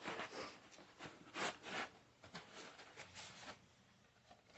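A cardboard box and its packaging being handled and opened: several short bouts of rubbing and scraping.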